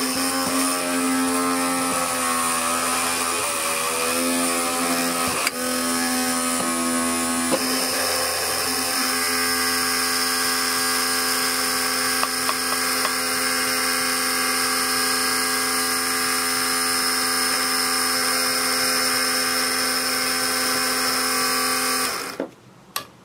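Small 12 V DC motor of a DIY mini drill press spinning a micro drill bit, giving a steady high whine. The pitch wavers during the first few seconds while the bit drills into a copper-clad board, and the motor cuts off suddenly near the end, followed by a few small clicks.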